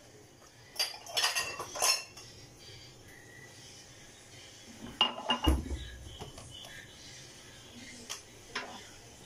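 Kitchenware being handled: two short bursts of clinking and knocking, about a second in and again around five seconds in, the second ending with a dull thump.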